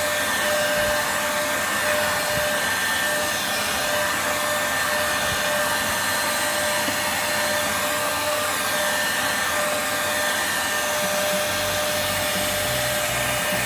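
Bolde Super Hoover vacuum cleaner running steadily, a constant rush of air with a steady whine on top, as it sucks up dust from the floor.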